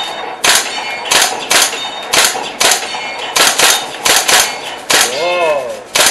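Airsoft gun fired in single shots in quick succession, about two a second and unevenly spaced, each a sharp crack with a brief metallic ring.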